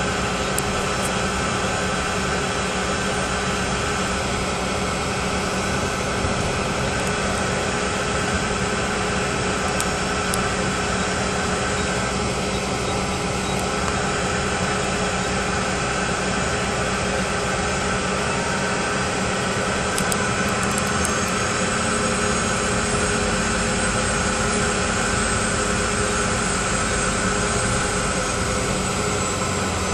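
Rear-mounted turbofan engines of a Bombardier CRJ jet running steadily, heard inside the cabin as it taxis: a constant rush with several steady whining tones.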